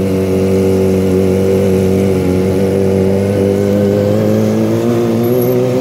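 Kawasaki ZX-25R's 250 cc inline-four running through a replaced aftermarket exhaust, holding a steady note that rises slightly in pitch near the end.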